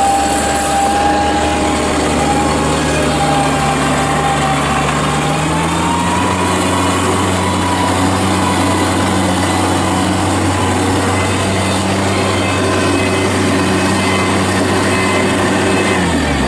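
Bobcat compact loader's diesel engine running hard, driving the hydraulic 48-inch angle broom as it sweeps snow, with a steady whine over the engine. The engine speeds up about a third of the way in and winds down right at the end.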